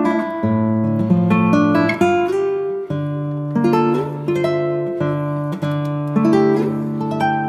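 Background instrumental music on plucked acoustic guitar, with notes and chords changing every second or so.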